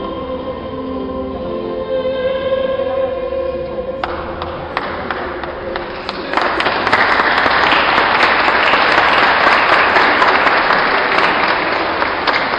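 Instrumental music of held, changing notes. About four seconds in, a churchful of people begins applauding; the clapping swells to a full round and starts to thin near the end.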